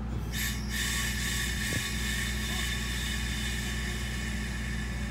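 Kushiro Shitsugen Norokko train standing at a station with its diesel running in a steady low hum. A high hiss starts suddenly about a third of a second in and carries on.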